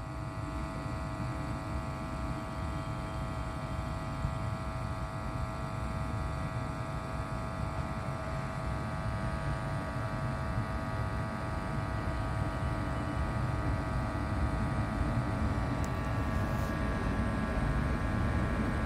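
WAP-5 electric locomotive approaching with a passenger train: a low rumble under a steady electric hum of several pitches, growing slowly louder.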